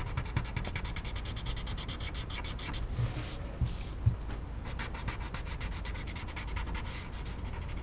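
Paper blending stump (tortillon) rubbed in rapid short back-and-forth strokes over graphite on a paper tile, smoothing the shading into a soft blend. A few light knocks near the middle.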